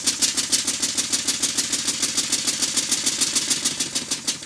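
Stuart model beam engine running on compressed air: a fast, even beat of exhaust puffs. It runs, but its valve timing is well out after the slide valve was dismantled and reassembled.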